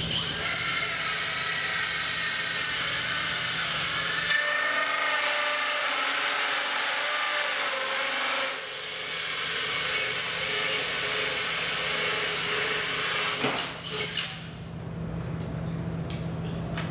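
Cordless drill spinning a carbide-tooth hole saw through wood with hardened fasteners embedded in it: a loud cutting whine whose pitch wavers with the load, dipping briefly about halfway. The saw gets through the fasteners without any issue. The cut stops after about thirteen seconds with a few sharp knocks.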